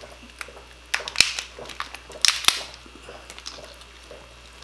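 Boiled crab or lobster shell being cracked and pulled apart by hand: sharp cracks in two pairs, about a second in and again just past two seconds, with quieter crunching between.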